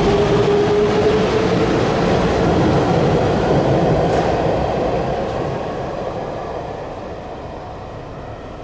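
Orange-and-cream Hanshin electric train running along the platform: a loud rumble of wheels on rail, with a whine that rises slightly in pitch early on. About five seconds in, the noise starts to fade steadily as the train moves away.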